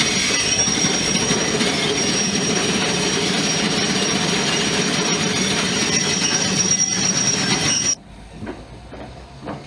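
Passenger train rolling on the rails: steady rumble and clatter with a thin, high, continuous wheel squeal. It cuts off abruptly about eight seconds in.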